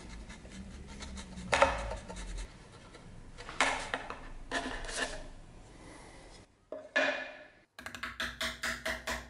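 Mortise chisel cutting and levering in a mortise in a wooden block: scraping and crunching of wood in several separate bursts, then a run of quick, even taps near the end.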